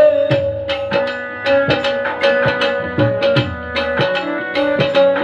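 Instrumental break in a live Punjabi devotional song: hand drums play a quick, busy rhythm over a steady held note from a melody instrument.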